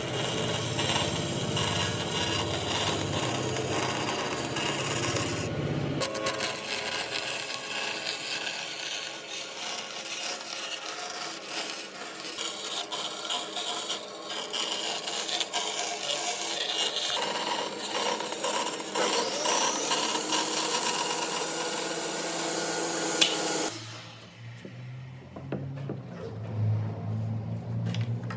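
A tool working on wood, a steady scraping and rubbing with many small clicks. It drops off sharply near the end, leaving a low hum.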